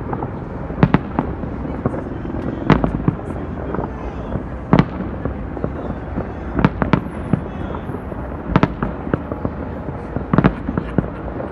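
Fireworks display: sharp bangs of shells bursting roughly every two seconds, with smaller cracks in between, over a steady background din.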